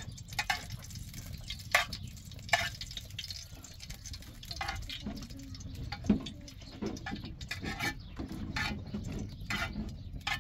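Metal spoon stirring and scraping in a frying pan over an open wood fire, with irregular short clicks and knocks over a steady low rumble.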